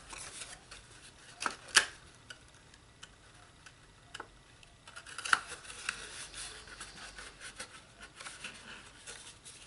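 Stiff designer paper of a small gift box being handled, pressed and lined up by hand: soft rustling and rubbing with a few sharp taps, the loudest just under two seconds in and another about five seconds in.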